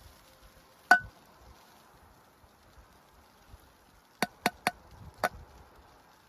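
Five sharp strikes, each with a short ringing note: one about a second in, then four in quick succession about four to five seconds in.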